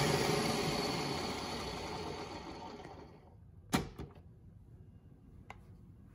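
Ninja Professional 1500-watt blender's motor winding down after being switched off, its whir fading away over about three seconds. Then two plastic clunks as the pitcher is lifted off the base, and a faint click.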